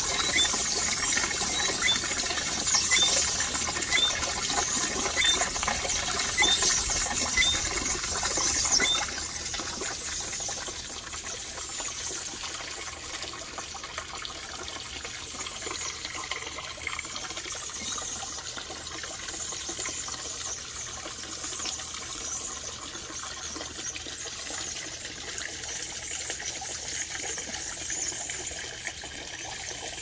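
Many garden birds chirping and twittering together in a dense chorus, with one short high note repeated about every three-quarters of a second over the first several seconds. The chorus quietens about nine seconds in and carries on more softly.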